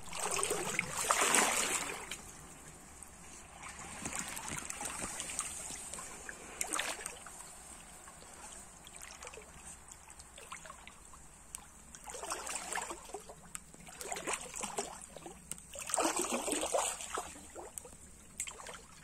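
Stream water splashing and sloshing in irregular bursts, loudest near the start and twice in the second half, with quieter trickling between and a faint steady high-pitched hiss underneath.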